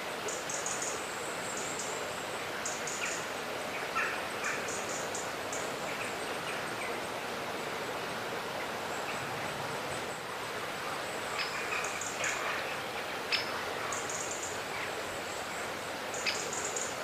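Mangrove swamp ambience: a steady background hiss with scattered bird calls, clusters of short high chirps and a few brief lower calls.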